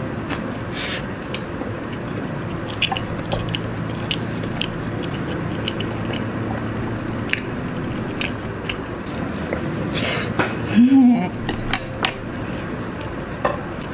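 Close-miked chewing of jjapaghetti noodles, with wooden chopsticks and a wooden spoon clicking and scraping against the bowl. There is a short hummed vocal sound about eleven seconds in.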